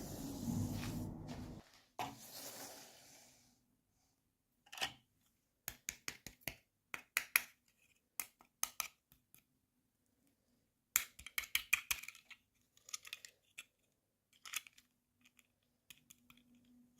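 Unboxing handling noises from small toy packaging and pieces. A brief rustle comes first, then clusters of sharp clicks and taps, some in quick runs.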